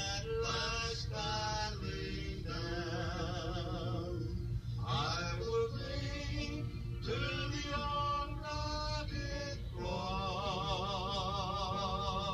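A man singing a slow song, holding long notes with a wide vibrato between short breaks.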